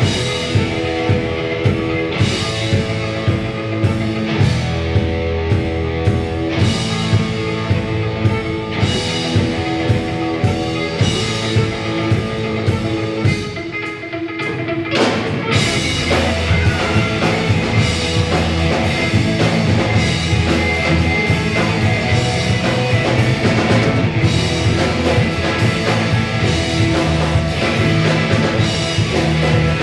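Live rock band playing: electric guitars, bass and drum kit. A steady beat of just under two drum hits a second under held guitar chords, then a brief drop about halfway through before the full band comes back in denser and louder.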